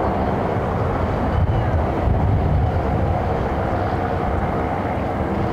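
A steady engine drone with a low rumble that swells briefly about two seconds in.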